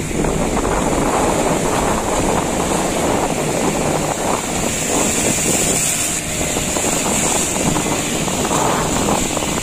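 Strong wind buffeting the microphone over rough sea, with waves and the steady running of a small fishing boat's motor.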